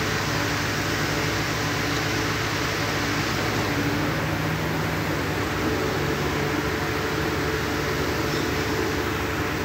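A machine running steadily: an even hiss with a low hum beneath it that stays level throughout.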